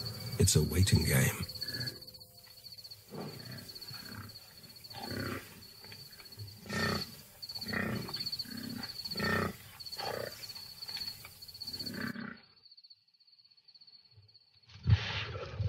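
Lions growling and snarling in a string of short, low calls about once a second. The calls stop for about two seconds near the end and then start again loudly. A cricket chirps steadily and high above them until the calls stop.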